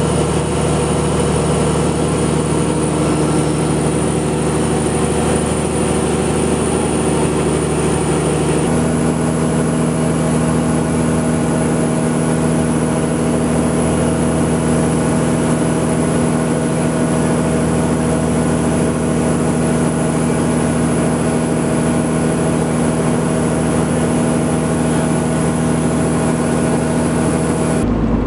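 Fishing boat's engine running steadily, a constant drone with a steady hum over a low rumble. About nine seconds in, the drone shifts abruptly to a different steady pitch.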